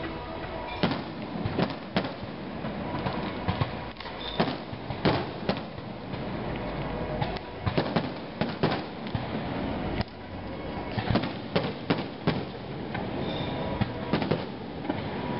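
Fireworks display: aerial shells and comets firing and bursting in a string of sharp, irregular bangs, some in quick clusters, over a steady rumble.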